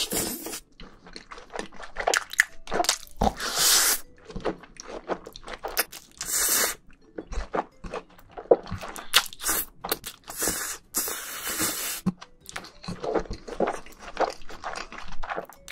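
Close-miked eating of jjajangmyeon black bean noodles: wet chewing and lip smacks with many small mouth clicks, broken by several longer slurps.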